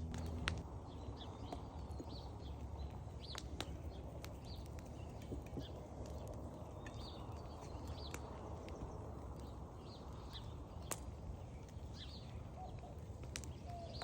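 Small birds chirping in short calls over the low steady sound of a wood fire burning, with a few sharp pops or clicks.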